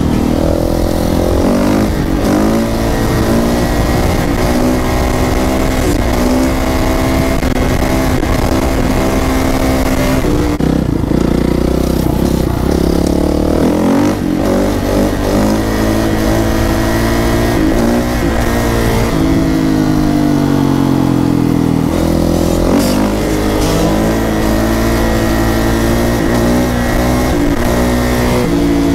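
Kawasaki KX450F (2018) single-cylinder four-stroke dirt bike engine under throttle during a wheelie. Its pitch climbs and drops several times as it revs and shifts gears.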